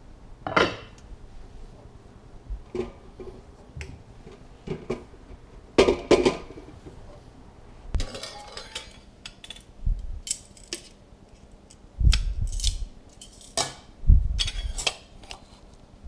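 Kitchenware being handled: scattered clinks, clatters and knocks of a stainless steel potato ricer and a glass mixing bowl being set out and handled, in irregular bursts with the loudest clatters about six, twelve and fourteen seconds in.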